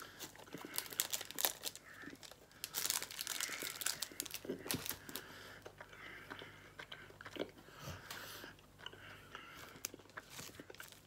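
A person chewing a bite of a strawberries and cream chocolate bar close to the microphone: a steady run of short clicks and smacks from the mouth.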